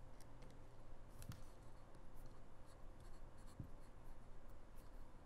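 Faint scattered small clicks and scratching as a small metal bolt is threaded back into a polymer holster insert and turned with an Allen key.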